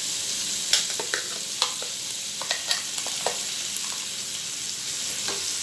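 Prawns sizzling steadily in hot ghee in a frying pan, with about nine sharp metal clinks as ground masala paste is tipped from a steel bowl into the pan.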